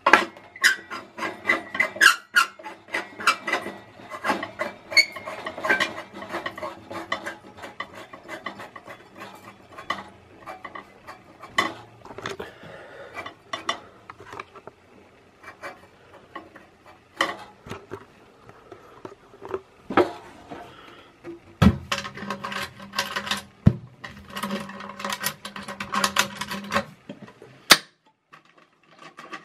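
Sheet-metal housing and aluminium reflector of a 400-watt high-pressure sodium flood light being handled. It makes an irregular clatter of clicks, rattles and scraping, with a few sharper knocks in the second half.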